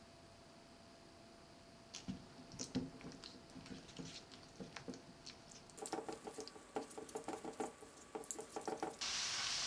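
Home cooking sounds: scattered small clicks and taps of utensils and kitchenware, then a quick run of sharp knocks from about six seconds in. Near the end a hot pan starts sizzling as food goes in.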